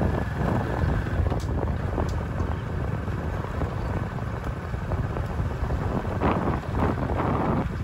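Wind buffeting the microphone: an uneven low rumble, with a few faint clicks.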